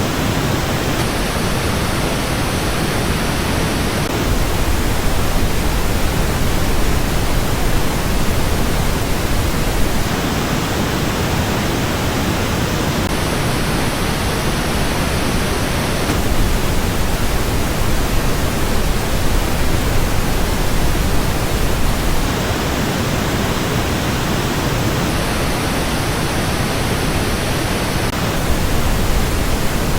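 Steady pink noise test signal for a headphone sound test. Every few seconds its treble changes, with narrow dips in the highs coming and going as playback switches between versions.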